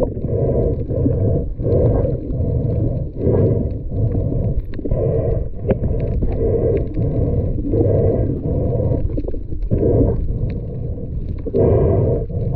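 Muffled underwater noise of a diver moving through the water, picked up through the camera housing. It comes in rhythmic surges a little more than once a second, the sound of fin kicks and water pushing past the camera.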